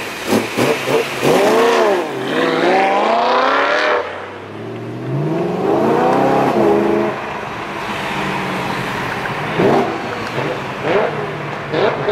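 BMW E92 M3's V8 with a loud aftermarket Aulitzky exhaust, revving up hard in long rising sweeps of engine pitch. There are a few short sharp blasts in the first second and again near the end.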